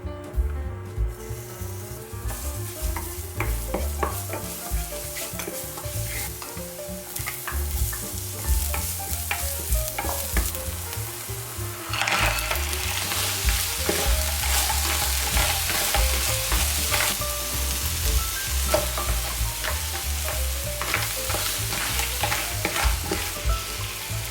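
Clams sizzling in oil as they are stir-fried in a pan, with the utensil scraping and shells clicking throughout. The sizzle grows louder about halfway through.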